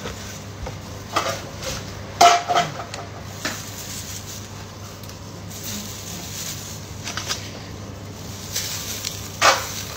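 Scattered handling noises of sandwich-making at a counter: light knocks, clinks and rustles, with two louder knocks about two seconds in and near the end, over a steady low hum.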